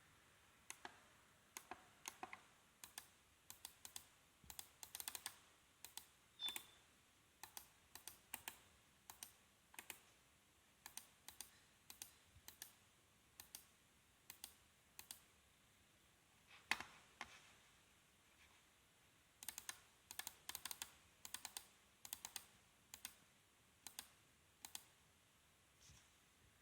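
Computer mouse buttons clicking at an uneven pace, single clicks and quick double clicks in clusters, with one louder click a little past the middle.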